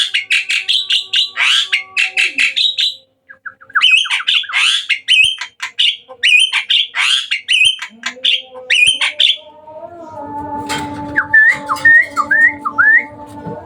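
Hybrid jalak suren (pied starling) singing hard, rapid runs of harsh chattering notes in two bouts with a short pause between them. Near the end the chatter stops and a steady hum sets in with a few short rising whistles over it.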